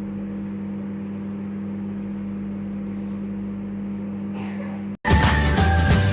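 A steady low machine hum holding a few fixed tones, then loud music cuts in abruptly about five seconds in.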